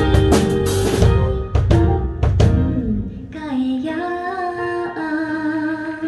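A woman sings live over a band with drums and guitar. The drums stop about halfway through, leaving her voice holding a long note over softer accompaniment.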